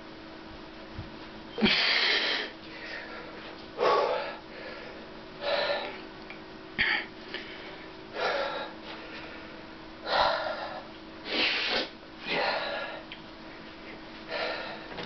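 A man's forceful breaths and grunts of effort, a sharp burst every second or two, as he strains to bend a steel wrench with his bare hands. A faint steady hum runs underneath.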